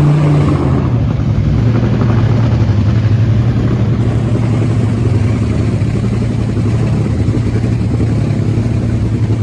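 Engine running steadily nearby, a low even drone with a slight drop in pitch about half a second in.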